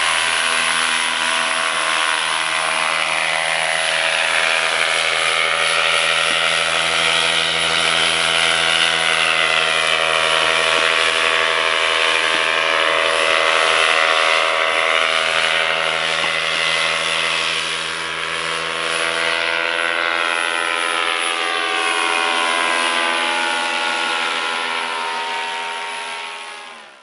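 Paramotor engine and propeller running steadily in flight, its pitch shifting a little as the machine moves overhead. The sound fades out at the very end.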